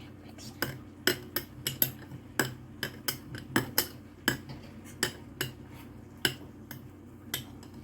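A utensil clinking against glassware while making strawberry lemonade: a quick, irregular series of sharp clinks.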